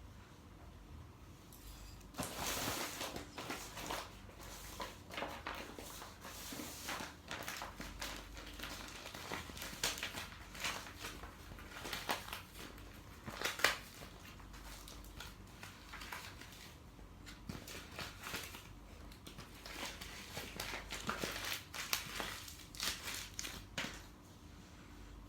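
Paper being handled and crinkled in irregular bursts of rustling and crackling, with a sharp crackle about halfway through as the loudest moment.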